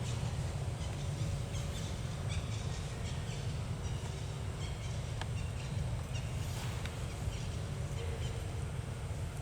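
Outdoor ambience: a steady low rumble with scattered short, high-pitched chirps and clicks from small animals.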